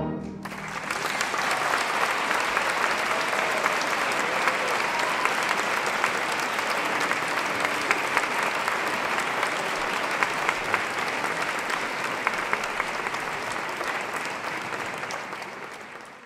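Concert audience applauding steadily after the orchestra's closing chord, which cuts off at the very start; the clapping fades out near the end.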